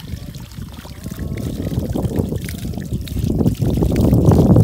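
Water from an outdoor spigot running and splashing over a rainbow trout and onto the ground as the fish is rinsed and cleaned by hand. It grows louder near the end.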